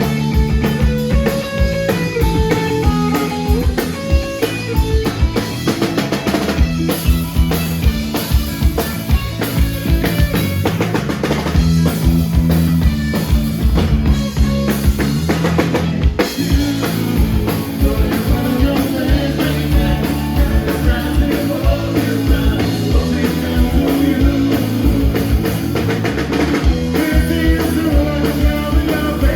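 Rock band playing a song live through the PA: electric guitars, bass and a full drum kit at a steady beat.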